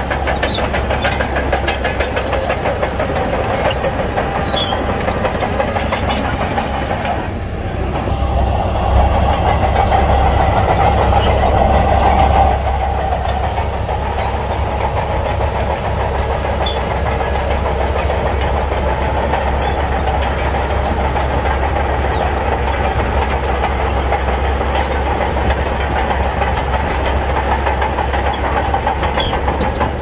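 Shantui crawler bulldozer's diesel engine running under load with a rapid clatter from its steel tracks as it pushes sand. The sound swells for a few seconds about a third of the way in, then settles back.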